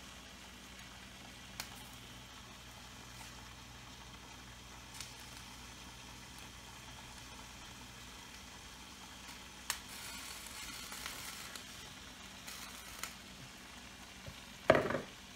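Mussels steaming in white wine under a glass lid in a frying pan, a faint steady sizzle with a few small ticks and pops. A brief louder knock comes near the end.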